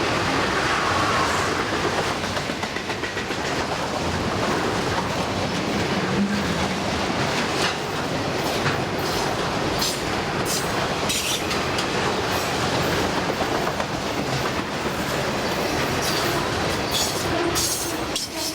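Long freight train's cars rolling past, a steady rumble with sharp clicks of the wheels over rail joints that come more often in the second half.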